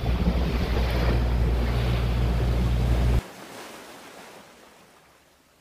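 Wind buffeting the microphone over the rush of water past a boat under way, loud and heaviest in the low end. It cuts off abruptly about three seconds in, leaving faint sea noise that fades away.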